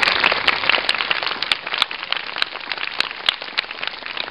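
Audience applauding, dense at first and thinning to scattered individual claps as it dies down.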